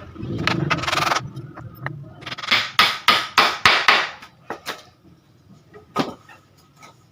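Hammer blows on a wooden frame: a steady noisy sound for about the first second, then a quick run of about six hard strikes in the middle, and a few single knocks afterwards.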